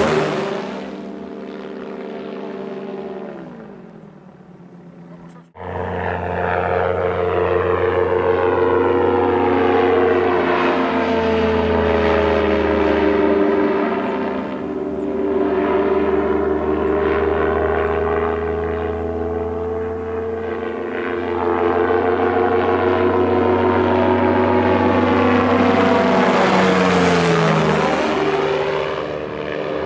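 Engine and propeller of a Polaris motorised hang-glider trike in flight, a steady drone whose pitch slowly rises and falls as it passes the listener. The sound fades out and cuts back in suddenly about five seconds in. Near the end the pitch sweeps down sharply as the trike flies past close by.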